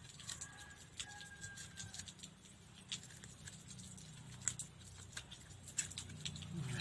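Bamboo fence sticks being handled and set in place: irregular light clicks and taps over a faint steady low hum.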